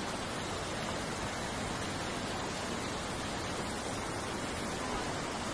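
Steady rushing of flowing river water, an even hiss with no distinct knocks.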